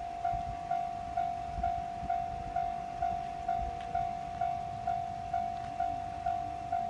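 Japanese railway level crossing warning bell ringing its steady alarm, a single mid-pitched note struck about twice a second, each strike fading before the next.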